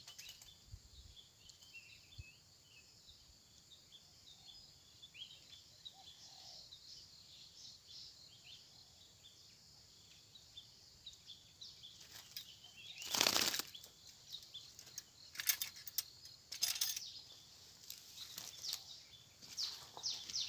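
Faint high chirping in the background, then several loud, short rustling noises in the second half, the loudest about 13 seconds in.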